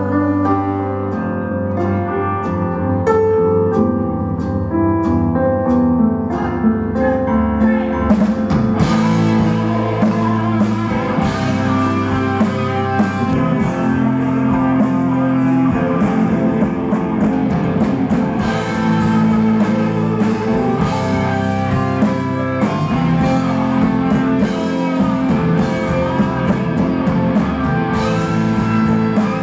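Live rock band playing an instrumental passage with an electric guitar leading. The drums and cymbals come in fully about eight seconds in.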